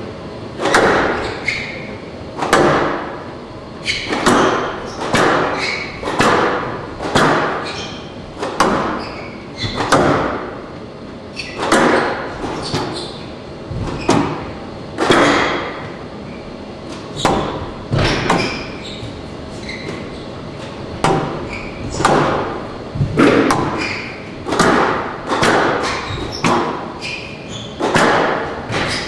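Squash ball struck back and forth in a long rally: sharp racquet hits and the ball smacking the court walls, about once a second and sometimes two in quick succession, each echoing in the large hall.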